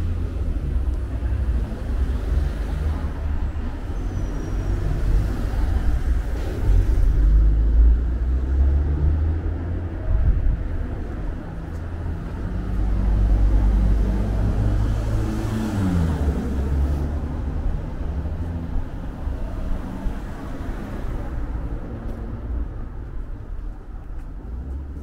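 Road traffic on a narrow town street: cars driving past, a steady low engine and tyre rumble, with a falling engine note about sixteen seconds in as one vehicle goes by.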